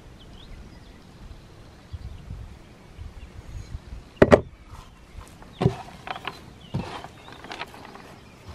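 Knocks of a bowl and utensils handled on a wooden table, the loudest a sharp double knock about four seconds in, with two more single knocks after it. Near the end comes the crinkle of a plastic bag being peeled off a pot of risen dough.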